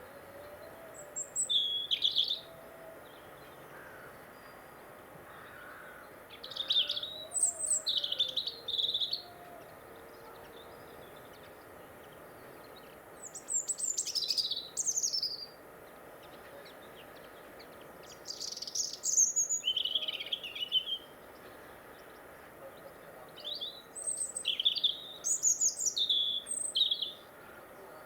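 A garden songbird singing in short high-pitched phrases, five of them, each two to three seconds long and spaced about five seconds apart.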